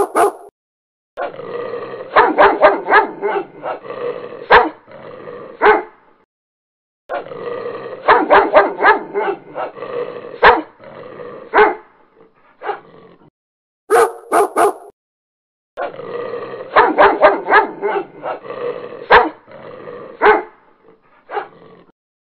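Two dogs fighting, with barks, yips and growls in three long stretches broken by sudden short silences.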